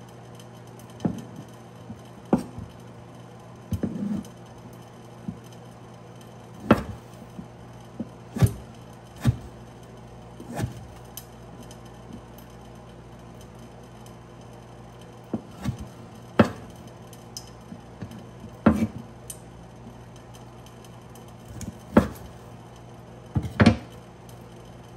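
Kitchen knife chopping horse conch meat on a wooden cutting board: sharp knocks of the blade hitting the board at an irregular pace, with a pause of a few seconds midway, over a steady low hum.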